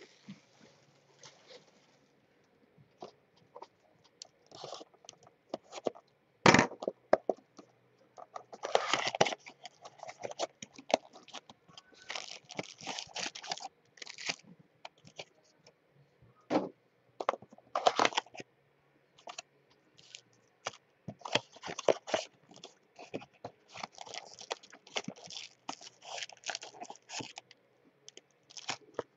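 Cardboard mini-boxes of trading cards being torn open and the foil card packs inside handled: irregular bursts of tearing, crinkling and scraping, with one sharp crack about six and a half seconds in.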